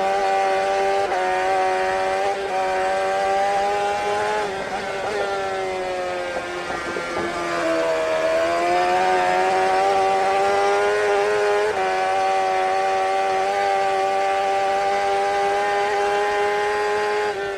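Aprilia RSV Mille's 60° V-twin engine running under way. Its steady pitch sags about halfway through as the revs drop, then climbs back and holds.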